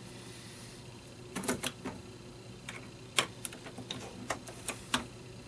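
Irregular small clicks and taps of brass cartridge cases and an RCBS hand priming tool being handled after priming, over a faint steady low hum.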